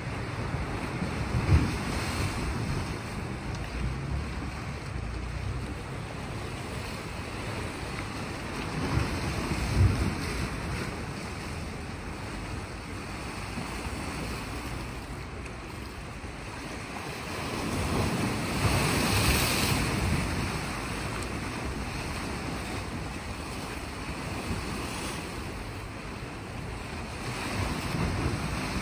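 Small sea waves washing against shoreline rocks in a steady hiss that swells and ebbs a few times, the biggest wash about two-thirds of the way in. Wind buffets the microphone with a couple of short low thumps.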